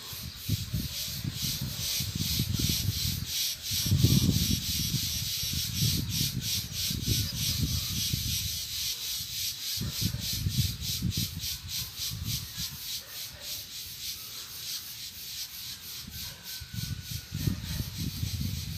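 Irregular low rumbling on the microphone, loudest about four seconds in, over a fast, even, high-pitched pulsing.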